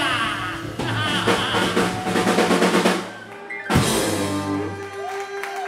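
Live rock band playing the closing bars of a song: a fast drum roll under the full band, then one loud final hit about three and a half seconds in, after which held guitar, bass and keyboard notes ring out and fade.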